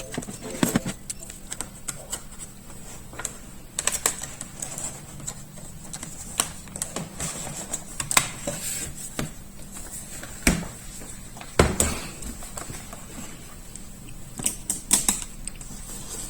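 Irregular light clicks and taps of hands handling the parts of an opened laptop, over a faint steady high tone.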